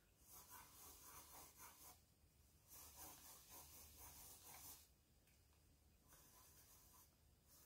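Faint pencil strokes scratching on drawing paper, in three runs of shading with short pauses between.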